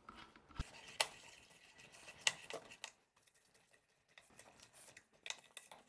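Hand screwdriver tightening the screws of a bidet seat's mounting bracket: a few faint, scattered small clicks, with a quiet stretch in the middle.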